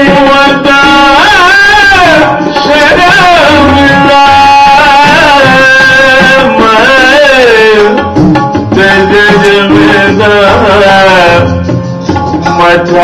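Sikh shabad kirtan in classical raag style: a man's voice sings a gliding melody over harmonium, with tabla keeping the rhythm.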